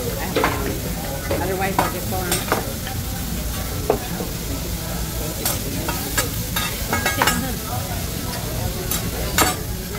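Food sizzling on a hibachi steakhouse's flat-top griddle: a steady hiss with about ten sharp clinks scattered through it.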